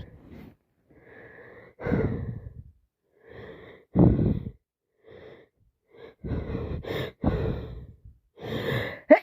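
A person with a heavy head cold breathing and sniffling noisily through a blocked nose: a run of about seven short, wheezy breaths and sniffs with pauses between them, the loudest about four seconds in.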